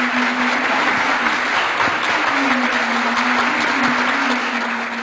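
Applause: dense, steady clapping that starts and stops abruptly, most likely a sound effect added in editing.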